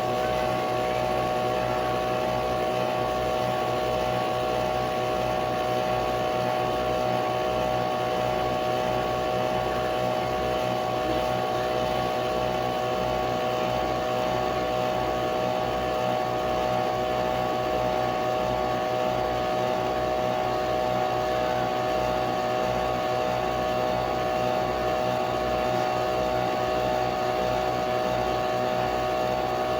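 Nespresso Vertuo Pop+ coffee machine running a brew cycle: a steady mechanical whir from the spinning capsule and pump, with a regular low pulsing underneath and an even level throughout.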